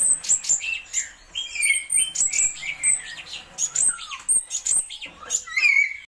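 Cucak cungkok leafbird singing a fast, varied song of short chirps and whistles, some notes sliding downward.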